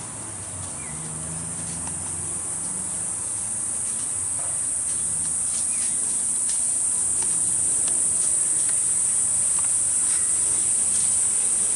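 Steady high-pitched insect chorus that grows gradually louder, with a few faint ticks and short chirps over it.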